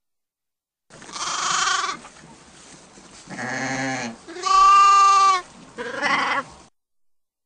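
Sheep bleating: four separate calls about a second each, starting about a second in, the third the loudest.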